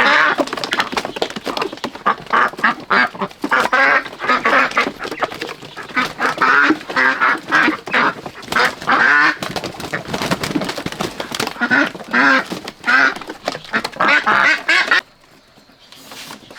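Many domestic ducks quacking at once in a dense, loud chorus of overlapping calls, which cuts off suddenly near the end.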